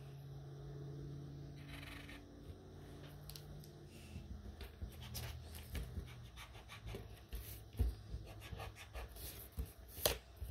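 Graphite pencil scratching on paper in short strokes, growing busier and louder after about four seconds. A faint low hum underneath fades out about three seconds in.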